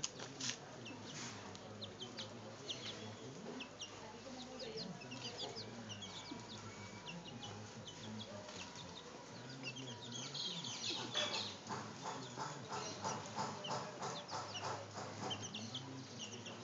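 Young chickens peeping: short, high cheeps scattered throughout, growing louder about ten seconds in into a rapid run of about three calls a second.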